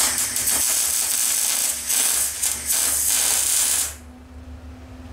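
Wire-feed welder arc crackling and sizzling as a steel collar is welded onto a shaft. It runs in a few bursts with two brief breaks and stops about four seconds in.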